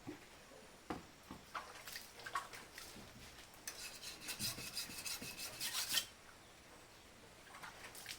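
A hand file scraping on the steel of a blade made from an old saw. A few scattered strokes come first, then a quick run of rapid strokes for about two seconds that stops suddenly.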